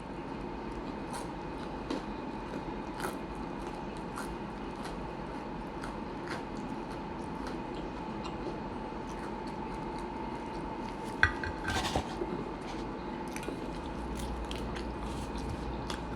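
Close-up eating sounds: chewing with many small, sharp mouth clicks over a steady background hum. A louder clink with a short ring comes about eleven seconds in, then a second one just after.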